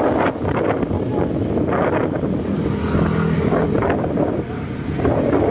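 Vehicle engine running while travelling along a street, with wind noise on the microphone.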